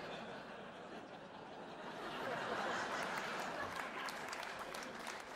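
Audience laughing and applauding, swelling to its loudest two to three seconds in and then dying down.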